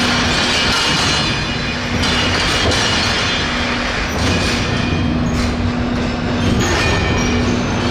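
Freight wagons rolling slowly through curved track on a ferry's train deck: steel wheels squealing on the rails, with a few sharp knocks.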